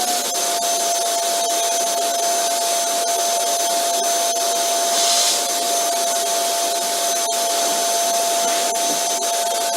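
Vacuum cleaner running steadily: a constant rush of air with a held motor whine, briefly hissier about halfway through.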